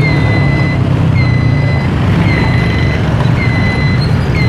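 An electronic beeper sounding a steady high-pitched beep about once a second, each beep lasting most of a second, over a vehicle engine running.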